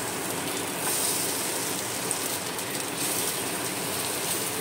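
Rava-coated fish cutlets shallow-frying in hot oil in a flat pan: a steady sizzle.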